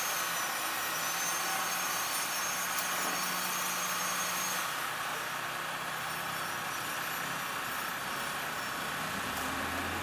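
A concrete mixer truck's diesel engine runs steadily. Over it, the high whine of a hand-held flexible-shaft concrete vibrator's motor cuts off about halfway through.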